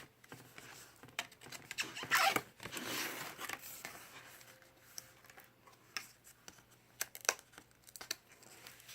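Paper and card flaps of a lift-the-flap book being lifted and pages turned: a longer paper rustle about two to three seconds in, then several short sharp flicks of card.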